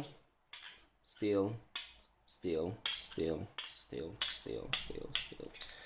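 A small magnet clicking against steel parts of an AK74 conversion kit, a quick run of sharp metallic clicks and clinks as it snaps on and is pulled off, with a man's quiet wordless vocal sounds between them.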